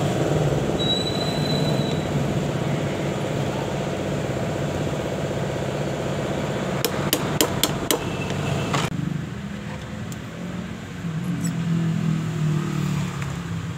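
A steel hammer tapping a flat screwdriver used as a punch on a small diesel fuel-injector part resting on a steel block: a quick run of about four sharp metallic taps about seven seconds in. A steady hum runs underneath and cuts off abruptly about nine seconds in.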